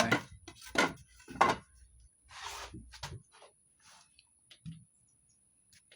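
A few light knocks and clatters of objects being handled and set down, with a short rustle about two and a half seconds in, then only faint scattered ticks.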